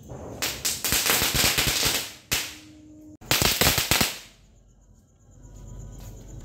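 Ground firework fountain spraying sparks with a dense crackling hiss, in two loud stretches, then dying away about four seconds in.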